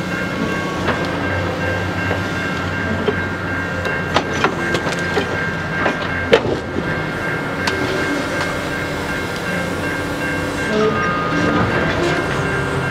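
Tie-handling excavator on a work train running steadily, with a series of sharp knocks and clatters from about four to eight seconds in as its grapple grabs old railroad ties and drops them onto the flatcars, the loudest a little after six seconds.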